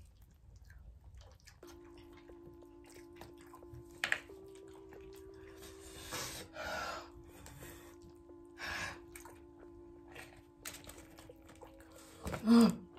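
Quiet background music holding a steady low note, under a few short hissing breaths blown out through pursed lips while eating spicy wings; the longest comes about six seconds in. Near the end there is a short, louder vocal sound.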